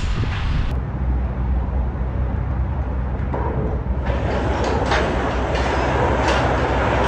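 Side curtain of a curtain-side trailer being slid open along its top rail, the runners rolling and clattering, busier and louder from about four seconds in. A steady low hum runs underneath.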